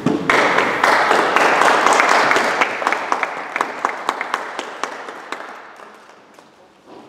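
Audience applauding, loudest just after it begins, then thinning to a few scattered claps and dying away about six seconds in.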